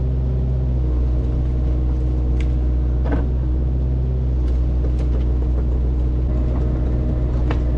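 Excavator engine running steadily, with a few sharp ticks and knocks over it.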